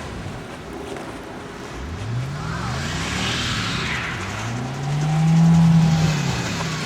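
Car engine revving hard as its wheels spin in snow, a sign the car is stuck. The revs climb about two seconds in, are held high and loudest for a couple of seconds past the middle, then drop away near the end.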